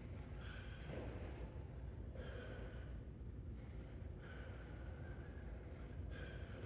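A man breathing hard while shadowboxing: four short, forceful exhales about two seconds apart, over a steady low hum.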